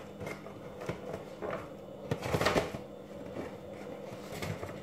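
Homemade cardboard vending machine being shaken and its handle twisted: scattered knocks and scraping rustles of cardboard, with a louder scrape about two and a half seconds in.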